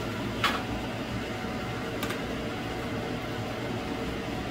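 Metal kitchen tongs click against a wire cooling rack as a naan is set down, a sharp click about half a second in and a fainter one about two seconds in, over a steady fan-like hum.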